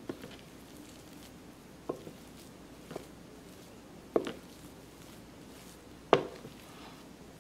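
Wooden spoon stirring mashed potatoes in a glass bowl, knocking against the bowl about five times at uneven intervals, the loudest knock near the end.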